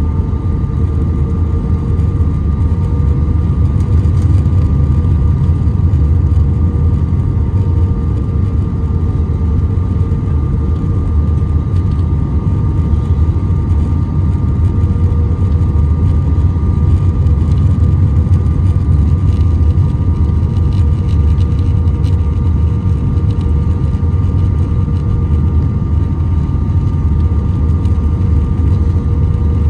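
Cabin noise inside an Airbus A319 on final approach: a steady low rumble of engines and rushing air, with a few steady whining tones from the engines on top.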